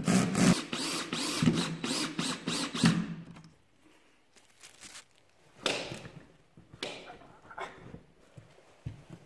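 Cordless drill/driver running in short bursts for about three seconds, driving a screw through a steel charger bracket into a wooden board. Then a couple of light knocks as a plug is pushed into a wall receptacle.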